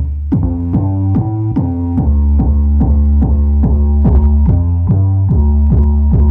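Bass-heavy electronic music played loud through a car sound system with a 12-inch Hbuster subwoofer. A regular pattern of notes repeats about two and a half times a second over a deep, steady bass.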